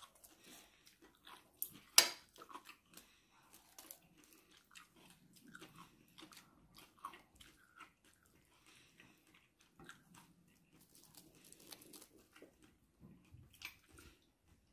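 Faint, scattered clicks and crinkles of chopsticks and crisp roasted seaweed being handled while a napa cabbage wrap is piled up in the hand, with one sharp click about two seconds in.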